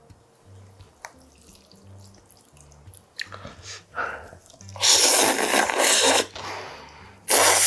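A man slurping naengmyeon cold noodles with their broth: one long, loud slurp about five seconds in, and a second starting near the end.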